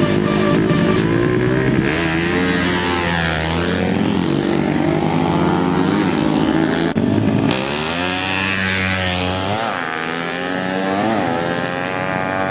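Drag-tuned Kawasaki Ninja motorcycle engine revving, its pitch rising and falling several times, with an abrupt change in the sound about seven seconds in.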